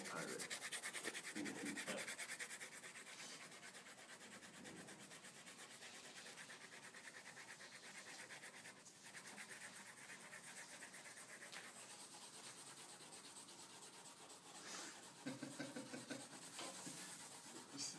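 Pencils scratching and rubbing on drawing paper, a faint steady scratching that is a little louder in the first couple of seconds.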